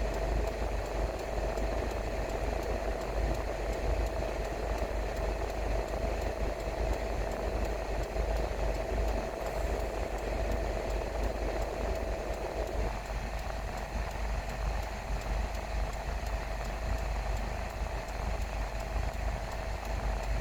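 Car on the move: a steady, continuous rumble of engine and road noise with a constant hum running through it. The middle of the noise thins out a little about two-thirds of the way in.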